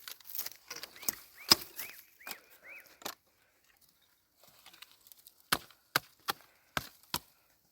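Irregular sharp knocks, like blows on wood, with a few short squeaky chirps in between about one to three seconds in; after a brief lull, five sharp knocks come in quick succession near the end.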